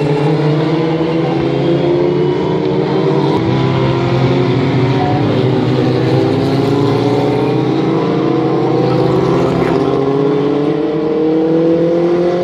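Several Formula Ford racing cars' 1600 cc Ford Kent four-cylinder engines running hard at once, their pitch rising slowly and steadily as they accelerate.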